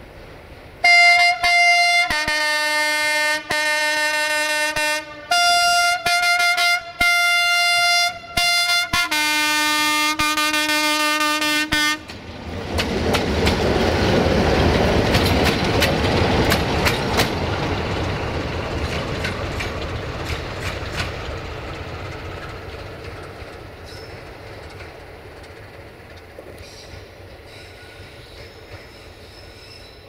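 ST43 (LDE2100) diesel-electric locomotive sounding its horns in a run of about six blasts, each a chord at a different pitch, over about ten seconds. It then passes close by, its diesel engine running and its wheels clattering over rail joints, and the sound fades as it runs away.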